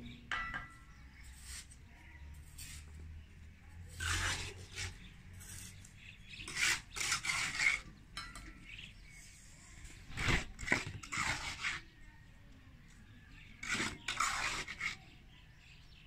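Masons' steel trowels scraping mortar and tapping bricks and a metal mortar pan: irregular scrapes and sharp clinks, a few seconds apart.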